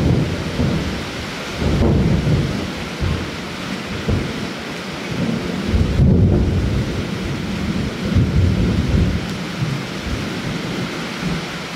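Thunderstorm: steady rain hiss with low thunder rumbles that swell and fade several times.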